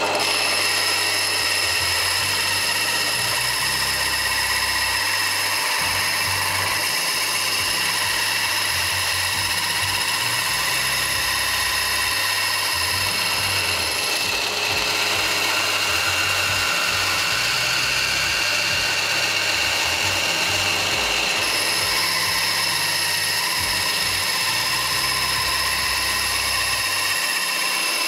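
Bandsaw running steadily, its blade cutting through 20 mm MDF board, with a constant high whine over the noise of the cut.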